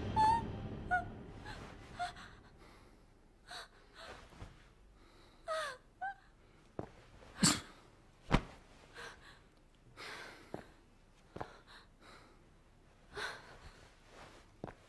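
A woman gasping and whimpering in pain in short, scattered breaths, with one falling moan about a third of the way in. Two sharp knocks come halfway through.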